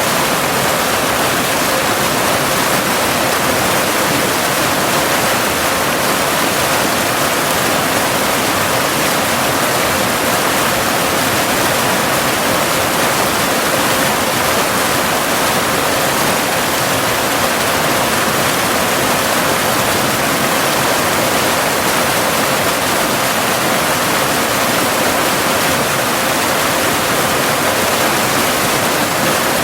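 Cascading waterfall rushing steadily, an even, unbroken wash of falling water. Under it runs a faint steady tone near 528 Hz, the binaural delta-wave tone mixed in for tinnitus relief.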